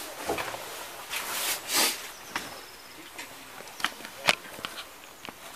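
Camera handling noise: rustling in the first two seconds, then a few sharp clicks and knocks as the camera is moved about, over a faint outdoor background.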